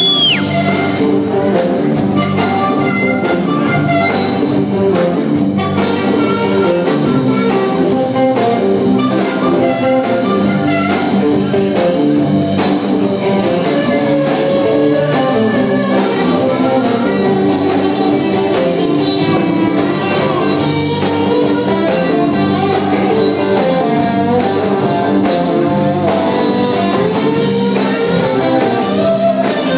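Live rock band playing an instrumental passage of a blues-rock song: electric guitars, bass guitar and drum kit, with no vocals, heard loud from the audience in a theatre.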